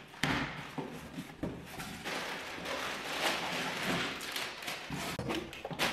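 Cardboard delivery box and packing being handled: continuous rustling and crinkling, with scattered taps and knocks.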